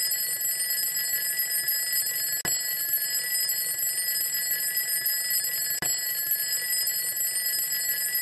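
Twin-bell alarm clock ringing continuously, a steady high metallic jangle that breaks off for an instant twice.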